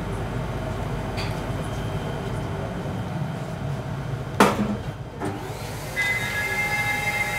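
Steady hum of crematorium machinery, with one loud metal clank about four and a half seconds in as a stainless steel remains container is handled. Near the end a steady high machine whine starts up.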